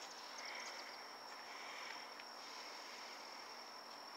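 Faint, steady high-pitched trill of insects, with a few softer chirps now and then.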